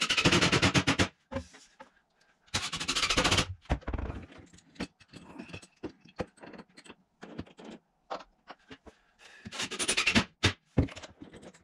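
Cordless impact driver driving screws into cabinet face frames in three rapid-rattling bursts of about a second each. Between them come short clicks and knocks of clamps and hand work on the wood.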